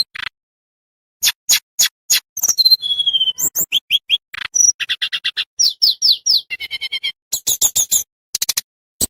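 Tledekan bambu songbird singing a rapid, varied song: strings of short sharp chips and quick trills mixed with brief down-slurred whistles, starting after about a second of silence.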